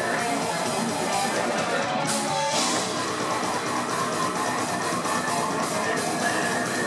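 Live slam death metal band playing at full volume: heavily distorted electric guitars and bass with drums, and the singer growling into the microphone.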